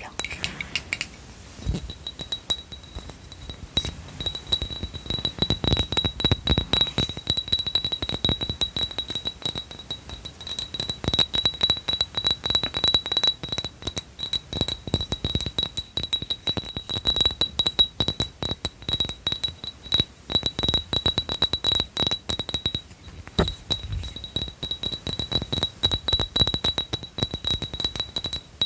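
Glass bottle being tapped rapidly, a quick run of light clinks. From about four seconds in, the glass also rings with a steady high tone under the taps.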